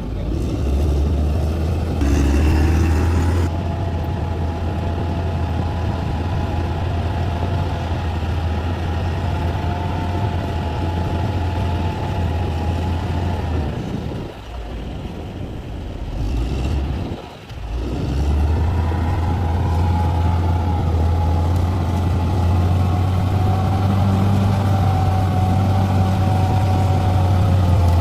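Heavy diesel engine of a bulldozer running steadily under work, with a strong low drone and a higher whine above it. The sound drops briefly a little past halfway, then picks up again.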